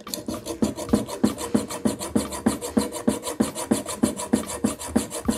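Small fine-toothed hacksaw sawing a metal part in quick, even back-and-forth strokes, a rasp on each stroke over a faint ringing note. The blade makes little headway in the metal; its teeth are too small for cutting metal.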